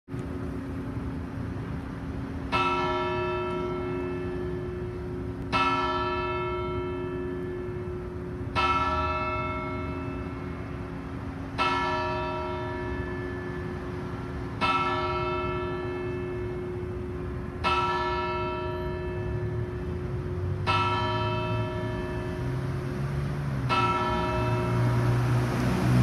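A single church bell tolling, one stroke about every three seconds, eight strokes in all, each stroke ringing on into the next.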